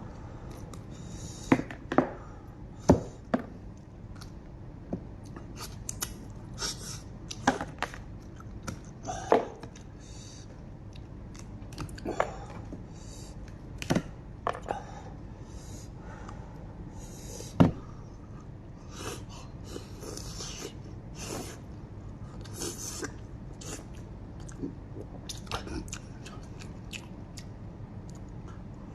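Close-miked chewing and biting while eating lamb head meat, with a dozen or so sharp crunches and clicks and wet smacking bursts scattered at irregular intervals, the loudest crunches in the first half.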